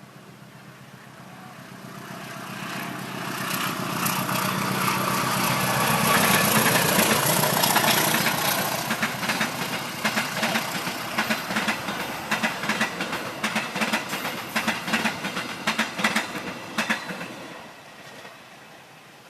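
A train passing close by: a rising rumble as it approaches, then a long run of rhythmic clickety-clack as the wheels cross rail joints, fading away near the end.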